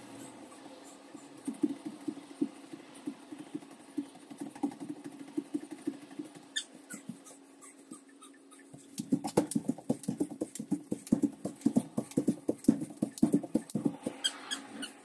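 Shoes tapping quickly and repeatedly on foam exercise mats during a fast Tabata interval, starting about nine seconds in after a stretch of light, scattered taps. A steady low hum runs underneath.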